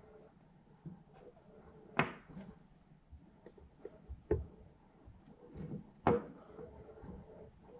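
Cylindrical 18650 battery cells handled and knocked against a wooden table: three sharp knocks about two, four and six seconds in, with light handling clicks between.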